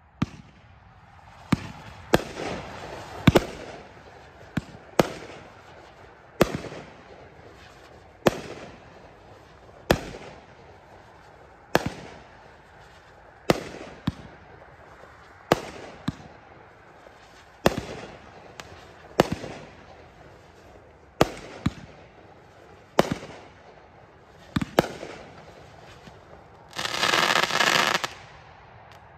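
A 16-shot 500-gram repeater cake ('Tribal') firing: sharp shots every one to two seconds, each trailing off in a fading hiss from its whirlwind (tourbillion) tail and break. Near the end a loud, dense crackle lasts nearly two seconds as a gold crackling break goes off.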